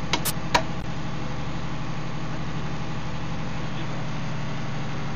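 A fishing boat's engine running steadily, with a low even drone. A few sharp knocks sound in the first second.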